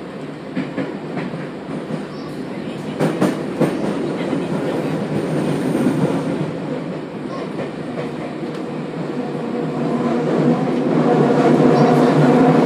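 Running sound inside Tokyu 8590 series motor car DeHa 8195 in a subway tunnel: loud tunnel rumble with wheels clacking over rail joints, several sharp clacks about three to four seconds in. It grows louder near the end, with a steady hum rising out of the noise. The tunnel noise is so loud that the field-chopper traction motors cannot be picked out.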